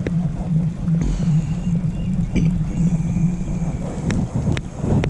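Fishing reel being cranked on a crankbait retrieve: a steady, pulsing whirr that stops about three and a half seconds in, with a few sharp clicks.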